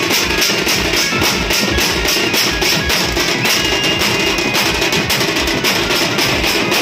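Teenmaar folk drumming: a group of barrel drums and hand drums beaten together in a fast, steady, driving rhythm of several strokes a second.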